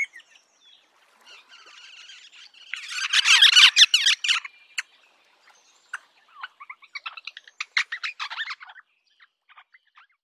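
Rosella calls: a loud, dense burst of rapid chattering about three seconds in, then a run of short quick notes, trailing off to a few faint ones near the end.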